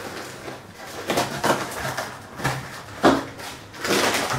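Brown paper and plastic wrapping being cut and torn off a parcel: a run of short crinkling, ripping rustles, the sharpest about three seconds in.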